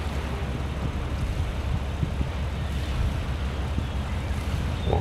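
Low, steady rumble of a large car ferry's engines as the vessel passes close by.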